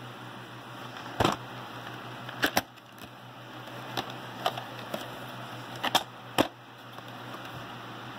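Sharp plastic clicks and snaps from a VHS clamshell case being opened and the cassette handled, about nine in all, the loudest about a second in and around six seconds. A steady low hum and hiss runs underneath.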